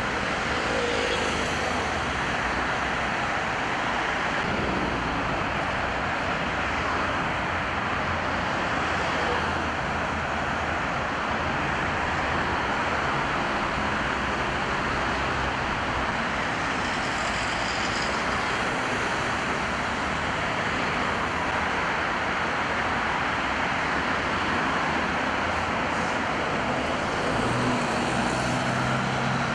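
Steady road traffic on rain-wet roads: a constant hiss of tyres with engines passing, and a low engine hum near the end.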